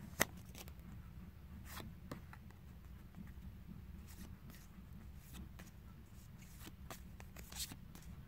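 Battle Spirits trading cards being handled and slid past one another: faint scattered flicks and paper rustles, with a sharp snap about a quarter second in and another a little before the end.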